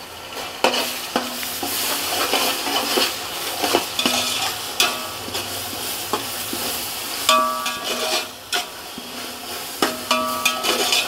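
Sliced onions and ginger-garlic paste sizzling in hot oil in a large metal pot while being stirred, the spoon scraping and knocking against the pot. Short ringing tones sound twice, about seven and ten seconds in.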